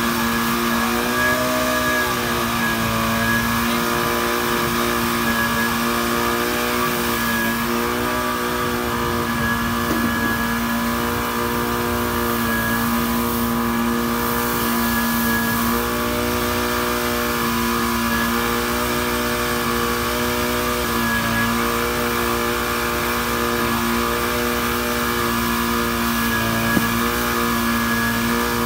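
Portable fire pump engine on the back of a small fire truck running steadily at high speed while feeding a hose; its pitch sags briefly about a second in and again about two-thirds of the way through, as the load on the pump changes.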